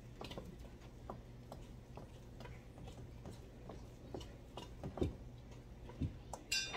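Wooden spoon knocking and tapping against a bowl as chapati dough is stirred, about two taps a second, with a few heavier knocks later on and a ringing clink near the end.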